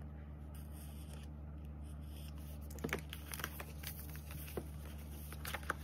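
Envelope being handled and opened, with paper rustling and a few light clicks and scrapes from about three seconds in as a card is slid out, over a steady low hum.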